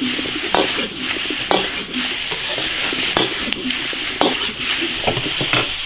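Beef and chilies sizzling in an iron wok while a metal spatula stir-fries them, scraping and knocking against the wok about once a second over a steady hiss.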